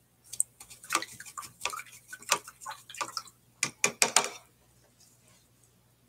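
Paintbrush clinking and tapping against a water jar as it is rinsed: a quick, irregular run of light taps that stops about four and a half seconds in.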